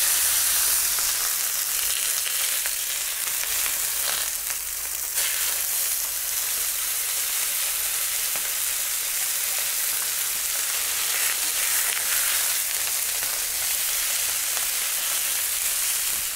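Entrecôte steaks sizzling steadily as they sear in clarified butter on a hot plancha, a little louder for the first couple of seconds.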